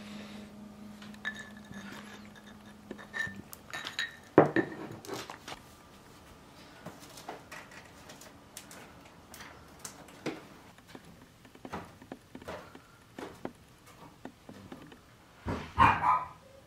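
A spoon clinking against a ceramic cup while stirring, with a sharper knock about four seconds in, then scattered small taps. A dog barks twice near the end.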